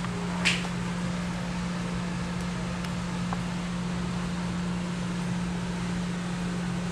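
Steady hum of running kitchen machinery: an even fan-like rush with a constant low tone underneath. A brief hiss cuts in about half a second in.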